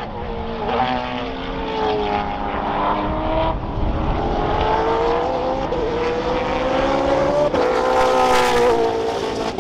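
Two sports sedan race cars accelerating hard past the trackside, their engine pitch climbing and then dropping back at each upshift several times.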